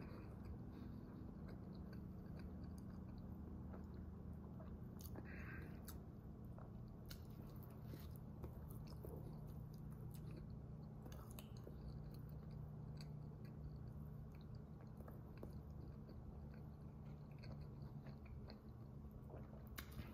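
A person chewing a mouthful of soft cheeseburger slider with small wet clicks, then taking another bite near the end, over a low steady hum.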